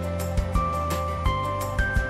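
Background music with a steady beat of about two strokes a second under held melody notes.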